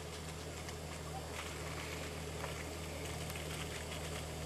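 Four-wheel drive's engine running steadily at low revs as it descends a muddy track in low gear: a low hum that grows slightly louder as it approaches, with faint scattered crackles over it.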